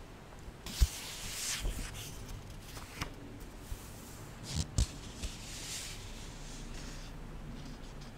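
Pages of a paperback book being turned and leafed through close to a microphone: two papery swishes, with a few soft knocks from handling the book.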